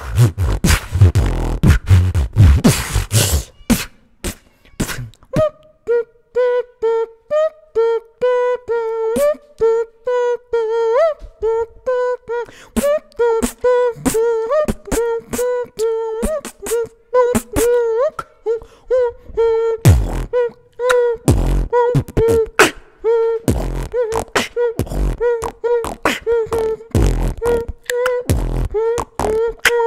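Human beatboxing freestyle into a close microphone. It opens with a heavy kick-and-snare beat, then drops to a vocal melody held around one note over light clicks. Deep bass kicks come back in about two-thirds of the way through, under the melody.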